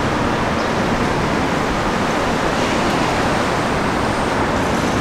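Steady rushing city street noise: a continuous haze of traffic with no distinct events standing out.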